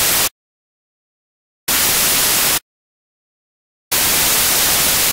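Loud white-noise static hiss switching on and off abruptly: three bursts of about a second each, separated by dead silence.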